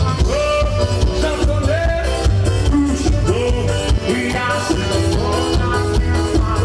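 Forró band playing loud music with a steady, heavy low beat, a voice singing a melody over it.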